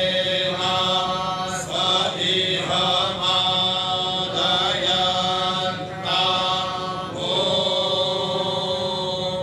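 Vedic mantra recitation: a group of men chanting together in a steady cadence, the lead voice amplified through a handheld microphone.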